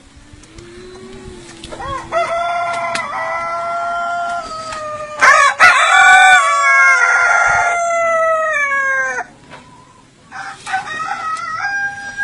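A long, drawn-out animal call held for about seven seconds, loudest in the middle and falling in pitch as it ends, followed by a shorter call near the end.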